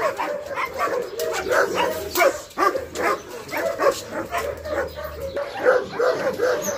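German Shepherd dog barking over and over, with whines in between.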